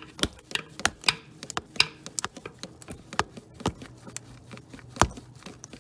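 Irregular sharp clicks and taps of hand tools and metal parts as a stuck power steering tube and its hose clamp are worked at by hand in a car's engine bay, with one louder knock about five seconds in.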